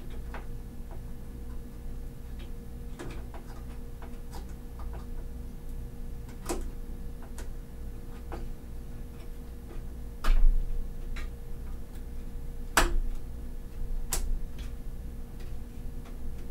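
Scattered small plastic clicks and taps from RAM modules and their packaging being handled, with a few sharper clicks, the loudest about ten and thirteen seconds in, over a steady low hum.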